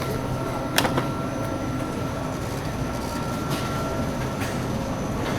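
Shopping cart rolling across a hard store floor, its wheels making a steady rumble and rattle, with two sharp clanks about a second in and a few lighter clicks later.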